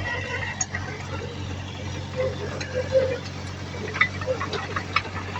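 Heavy earthmoving machine's diesel engine running steadily, with several sharp metallic clanks about four seconds in.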